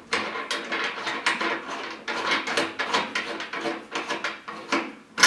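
Metal wing nut being spun off a threaded stud by hand, with the corrugated metal storm shutter panel scraping and clattering against its track in quick irregular strokes. There is a louder knock near the end.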